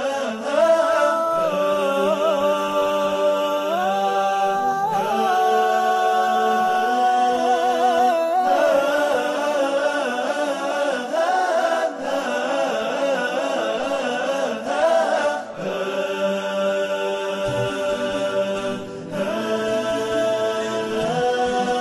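Wordless vocal passage of an Arabic nasheed: several layered voices hold long notes that step and slide in pitch, pausing briefly every few seconds.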